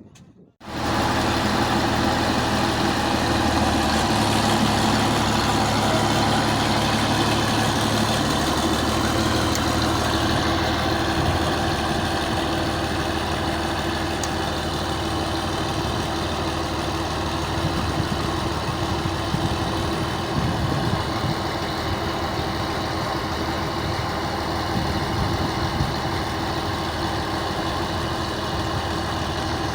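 Engine of a large Mercedes machine idling steadily; it comes in abruptly about a second in.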